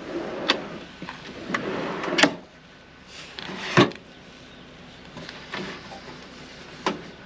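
Gear being handled for making coffee: a handful of sharp knocks and clatters with some rustling between them, the loudest about four seconds in.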